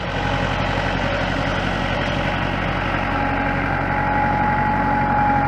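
Engine of a four-wheel-drive loader running steadily, with a thin steady whine coming in about halfway through.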